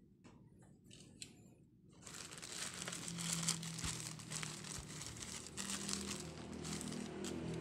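Plastic courier mailer bag crinkling as it is handled and turned over, starting about two seconds in.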